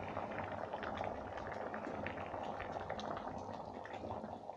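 Thick mixed-lentil dal (panchmel dal) simmering on a low flame, bubbling steadily with many small pops and blips as the lentils cook soft.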